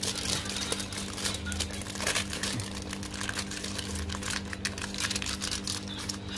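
Aluminium foil crinkling and crackling in quick, irregular ticks as it is folded over and pressed tightly around a meat roll.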